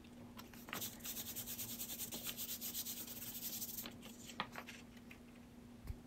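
A small paintbrush scrubbing quickly on paper: a rapid run of scratchy strokes for about three and a half seconds, then a couple of light taps.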